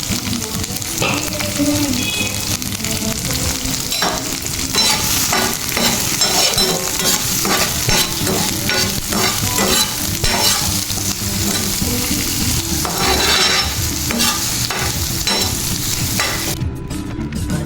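Food sizzling as it fries in a pan while being stirred, with a utensil repeatedly scraping and knocking against the pan. The sizzle drops away near the end.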